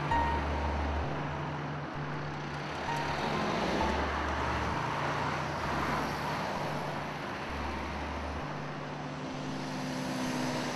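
Road traffic: cars and vans driving past, with tyre and engine noise swelling around the middle. Under it, low held music notes change pitch every second or so.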